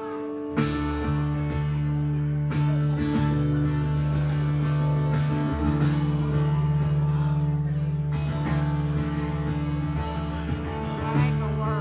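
Live guitar music: the instrumental intro of a song, with strummed guitar over sustained notes. The fuller low part comes in about half a second in.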